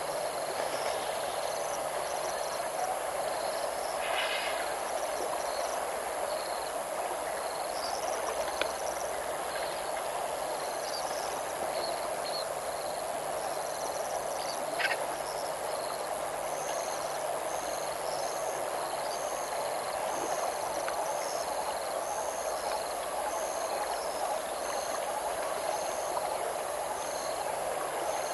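Steady outdoor bush ambience of calling insects and frogs, with a short high chirp repeated about once a second through the second half and a few brief clicks.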